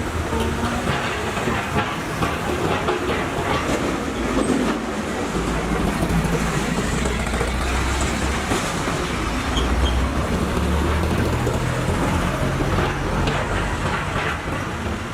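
Caterpillar 320 hydraulic excavator working: its diesel engine runs with a low drone that shifts in pitch under load, under steady clanking and rattling.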